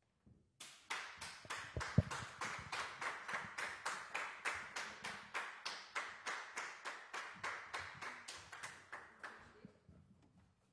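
Hand clapping in steady, evenly spaced claps, about four a second, beginning about half a second in and fading away near the end. A single low thump sounds about two seconds in.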